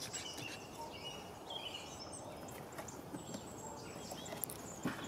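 Birds chirping and calling over a quiet woodland background, with short high notes scattered throughout. Two light knocks come near the end.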